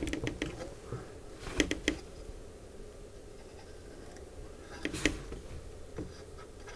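Small metal clicks and light scraping as a helical thread insert is wound into a stripped threaded hole in a camera body with its installation tool: two clicks about a second and a half in, another near five seconds.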